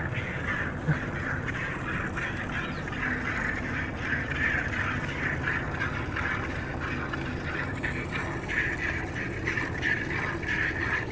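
A cow being milked by hand: jets of milk squirting into a steel pot partly full of frothy milk, a run of hissing squirts, one with each squeeze.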